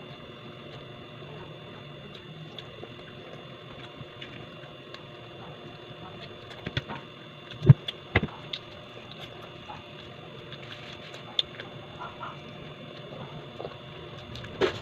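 A person eating close to the microphone: soft chewing and mouth sounds with scattered sharp clicks, the loudest two about eight seconds in.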